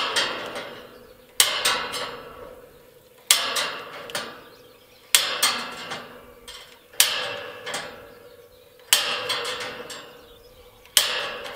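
Knipex cutting pliers snapping through the steel wire of a welded-wire panel, seven cuts about two seconds apart. Each cut is a sharp snap followed by a short metallic ring from the wire panel.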